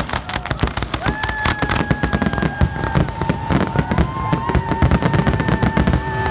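Aerial firework shells bursting in a rapid, continuous barrage of overlapping bangs and crackles, the dense finale of the display. Steady tones are held for a couple of seconds at a time over the bangs.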